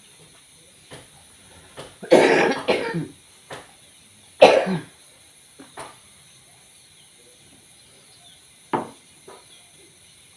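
A person coughing: a fit of several coughs about two seconds in and one more about four and a half seconds in, with a few light knocks in between.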